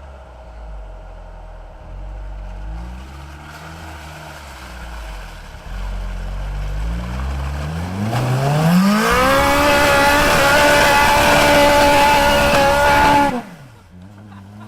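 Turbocharged 4A-GE four-cylinder twin-cam engine in a Toyota Hilux pickup, idling with light throttle blips, then revving up smoothly and held loud at high revs for about four seconds before the throttle is let off suddenly and it falls back to idle.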